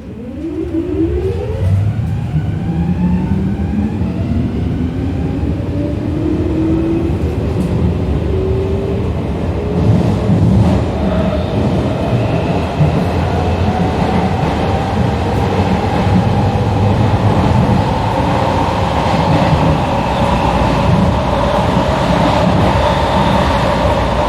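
Metro train heard from inside a car as it pulls away: the electric traction motors whine, rising in pitch as the train speeds up over the first several seconds, then settling into a steadier high tone over a continuous low rumble of wheels on rails.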